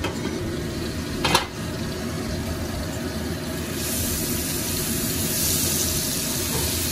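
A single clank of the stainless steel pot lid about a second in, then garlic sizzling in hot oil, the hiss growing louder from about four seconds as ginger powder is sprinkled into the pan. A steady low hum runs underneath.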